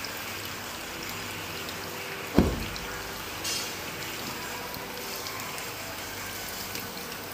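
Coconut tom yum soup simmering in an aluminium wok while a metal ladle stirs it, with liquid sloshing and trickling. A single sharp knock about two and a half seconds in.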